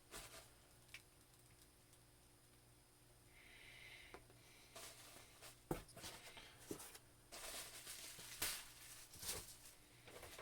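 Faint rustling and handling sounds with several small clicks and knocks, growing busier about halfway in: a mailed package of wrestling action figures being opened by hand.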